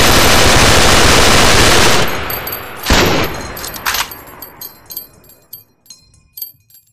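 M249 light machine gun firing a long fully automatic burst that stops about two seconds in, followed by two separate loud reports about a second apart. Small metallic clinks follow and die away, the sound of spent brass casings landing.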